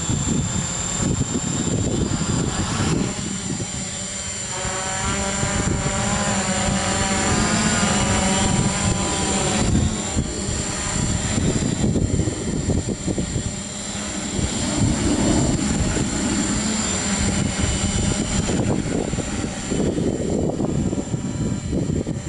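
FLYPRO X600 hexacopter flying, its six electric motors and propellers buzzing with a pitch that wavers up and down as the motors change speed.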